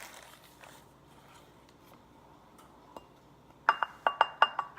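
Rapid run of ringing clinks from a utensil tapping against a glass bowl, about six taps a second, starting near the end after a few quiet seconds.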